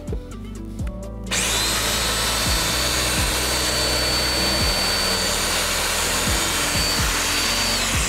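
Festool DF 500 Domino joiner running with its dust extractor while cutting a mortise in the panel. Both start about a second in: a steady rush of air with a thin high whine from the joiner, which winds down near the end while the rushing goes on. Background music is heard throughout.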